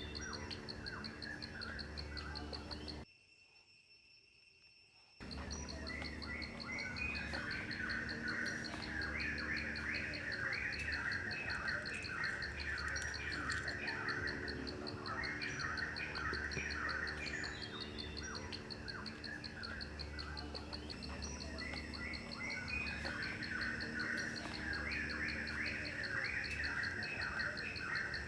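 Insects trilling steadily in a fast, high-pitched pulse while birds chirp and call repeatedly. About three seconds in, everything drops out for roughly two seconds, then resumes.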